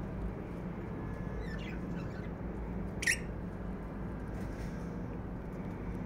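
Lovebirds calling: a quick run of soft chirps falling in pitch about one and a half seconds in, then a single sharp squeak about three seconds in, over a steady low hum.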